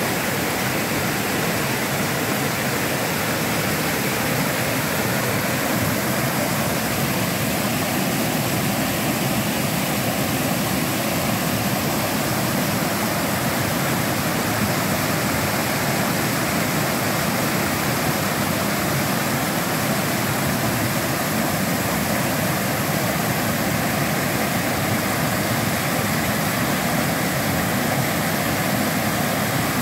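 Small waterfall cascading over rocks: a steady, even rush of white water.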